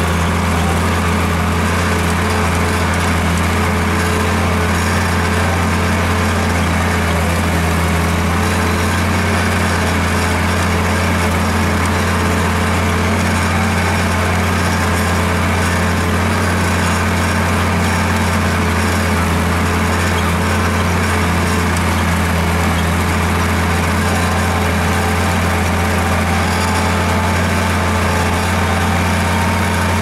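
Farm tractor engine running at a steady, even speed under load while pulling a plough, heard close from the driver's seat beside the exhaust stack.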